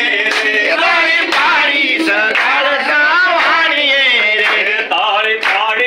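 A mixed group of men and women singing a song together, clapping their hands along with it.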